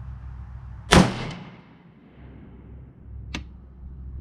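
A single rifle shot from an AR-style rifle fitted with a Mission First Tactical muzzle brake: one sharp crack about a second in that rings on and fades over about half a second. A much fainter sharp click follows about two seconds later.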